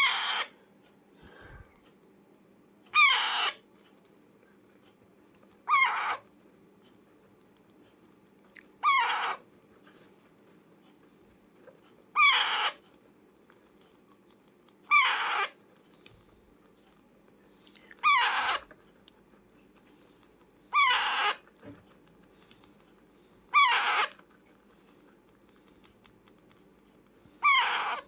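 Alexandrine parakeet giving harsh, screechy calls, about ten of them, each roughly half a second long, repeated about every three seconds.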